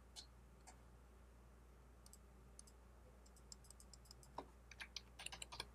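Near silence with scattered faint clicks, coming closer together in a quick run of clicks near the end.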